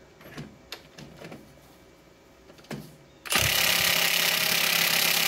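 Milwaukee M18 FUEL 2763-20 half-inch high-torque impact wrench hammering on a crankshaft pulley (harmonic balancer) bolt through a 19 mm deep impact socket. It starts abruptly about three seconds in, after a few light clicks of the socket being fitted, and the bolt does not break loose.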